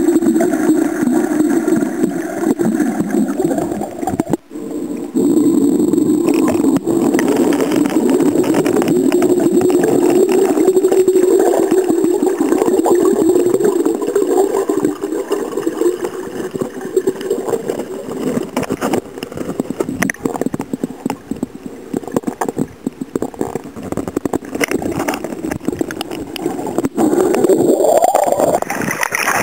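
Muffled underwater noise picked up by a submerged camera: a steady low rumble with gurgling water, with a rising swish near the end.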